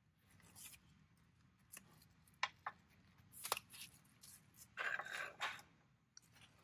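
Faint, scattered clicks and light knocks of hand tools and plastic trim being handled, with one longer scrape about five seconds in.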